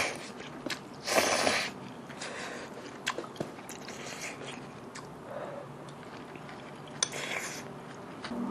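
A person slurping glass noodles from hot soup, one long slurp about a second in and a shorter one about seven seconds in, with quiet chewing and small clicks between them.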